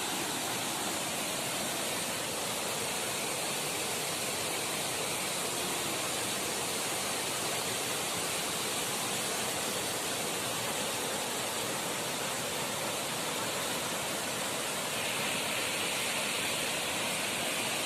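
A waterfall's rushing water: a steady, even roar.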